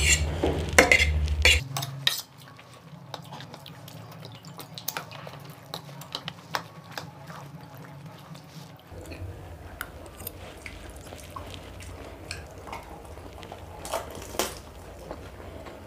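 Metal forks clinking and scraping against plates of macaroni pasta, a cluster of loud clinks in the first two seconds, then quieter scattered clinks.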